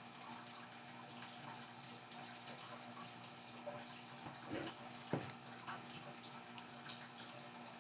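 Quiet room tone: a steady faint hiss with a low hum, and a brief click about five seconds in.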